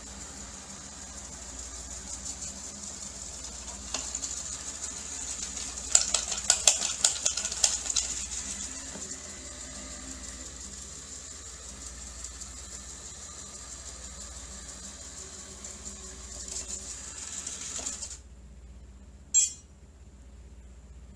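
Robot vacuum cleaner running with a steady high-pitched whine. About six seconds in comes a quick run of rattling clicks, like debris being picked up. The running sound cuts off suddenly about 18 seconds in, and a single short sharp sound follows.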